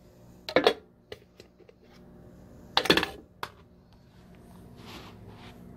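Plastic clicks and knocks as the cover of an Innogear aroma diffuser is handled and lifted off: a sharp cluster about half a second in, a louder one about three seconds in, then a single click. A faint low steady hum runs underneath.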